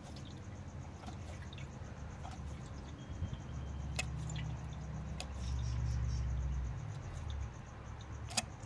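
Sharp clicks and light knocks of plastic and metal mower parts being handled, over a low rumble that swells in the middle and fades again.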